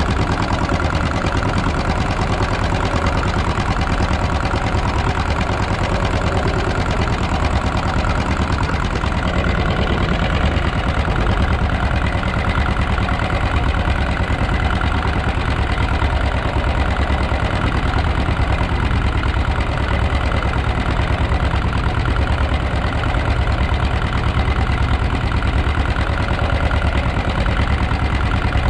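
Fishing boat's inboard engine running steadily, with a fast, even low beat.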